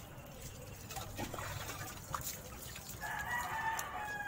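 Water splashing as it is poured from a plastic dipper over a wet dog, and a rooster crowing once for about a second and a half near the end.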